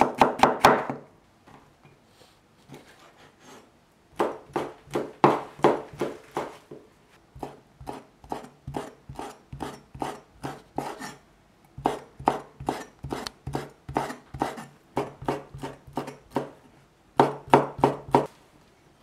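A Chinese cleaver slicing through cucumber and then through boiled pig ear, each stroke knocking on a wooden cutting board. The strokes come in quick runs of about five a second, with short pauses between runs and a quieter stretch of faint taps near the start.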